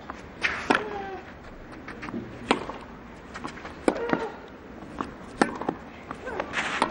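Tennis ball struck by racquets in a baseline rally on a clay court: four sharp hits about a second and a half apart.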